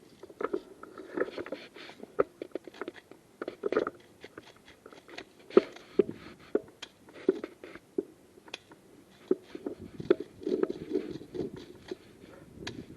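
Irregular crunching, crackling and rustling of dry vegetation and twigs as someone moves through it: many short, uneven snaps with no steady rhythm.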